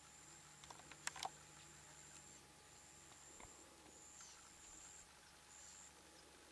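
Near silence with faint, high-pitched insect trilling that stops and starts in stretches of a second or so, and a couple of sharp clicks about a second in.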